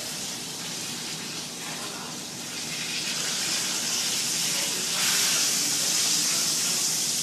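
Kitchen tap running into a stainless steel sink, a steady rushing hiss that gets louder about two and a half seconds in and louder again at about five seconds as the flow opens up.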